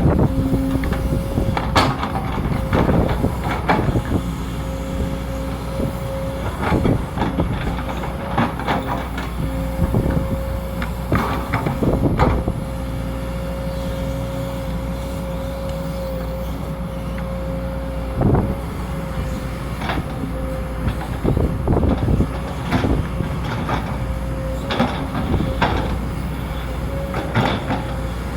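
Sumitomo SH210 hydraulic excavator working, its diesel engine running steadily with a constant whine, broken by irregular metallic clanks and knocks.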